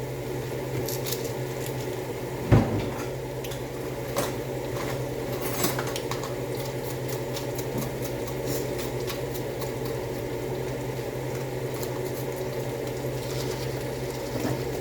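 Utensil clinking and scraping against a cooking pan, with one louder knock about two and a half seconds in, over a steady low hum.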